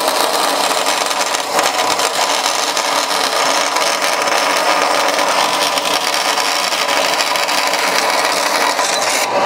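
Vertical band saw running steadily as its blade cuts the rough edges off a Briggs & Stratton engine's metal ignition backing plate.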